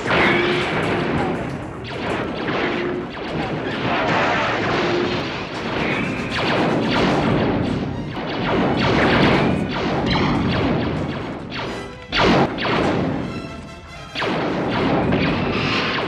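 Sci-fi film battle sound effects: repeated blaster shots, impacts and explosions in quick succession, with no dialogue.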